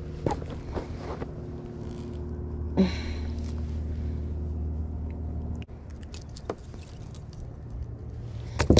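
Electric trolling motor humming steadily, with a sudden drop in level about two thirds of the way through. Scattered clicks and rustles of the fish and line being handled, with a louder cluster of clicks near the end.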